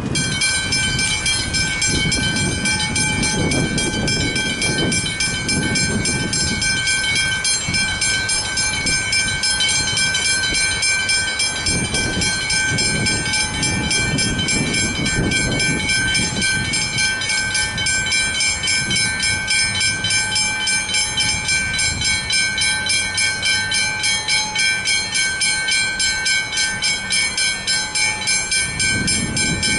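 Westinghouse Hybrid level-crossing bells start up suddenly and ring continuously in a rapid, even run of ringing strokes. They are the warning that a train is approaching the crossing.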